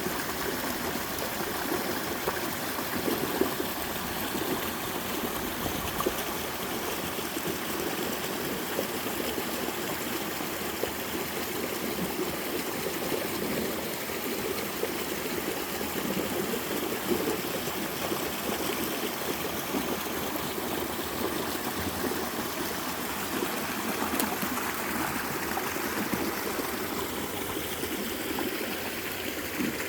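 Mountain stream water running over a multi-tiered slide waterfall, where the water slides down sloping rock: a steady rushing and splashing with small shifts in level.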